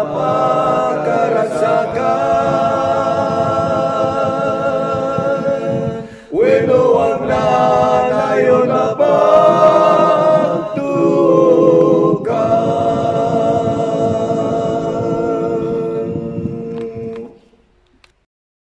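One man's voice, recorded several times over and layered into unaccompanied harmony, singing an Ilocano gospel song in long held notes. The singing breaks off briefly about six seconds in, then resumes, and the last held chord fades out near the end.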